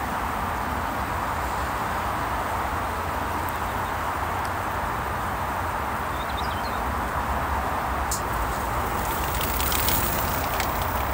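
Steady rush of motorway traffic, an even wash of tyre and engine noise, with a few light clicks near the end.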